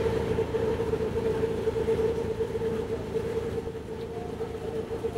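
Engine running steadily, with a constant mid-pitched hum over a low rumble.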